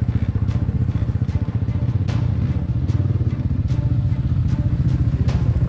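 Enduro dirt bike engine running steadily, with a low, fast pulsing.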